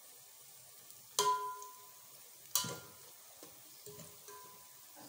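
Slotted steel spatula stirring and scraping fried onions and whole spices against a stainless steel pot, over a faint sizzle of oil. Two sharp clanks ring out, about a second in and again a second and a half later, followed by a few lighter taps.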